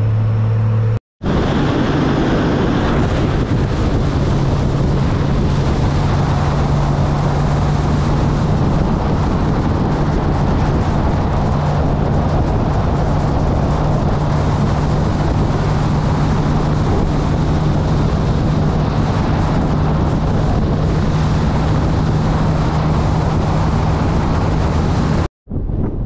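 Honda Gold Wing F6B motorcycle cruising on the highway: a steady flat-six engine hum under loud wind and road noise. It cuts out briefly about a second in and again near the end.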